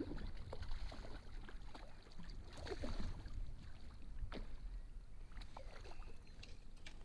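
Hooked rainbow trout splashing and thrashing at the surface as a landing net is dipped into the water to scoop it, irregular splashes with a sharper one about three seconds in, over a steady low rumble.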